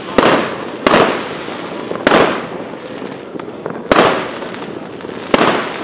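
Aerial fireworks bursting overhead: five sharp bangs at uneven intervals of about one to two seconds, each trailing off over a second or so.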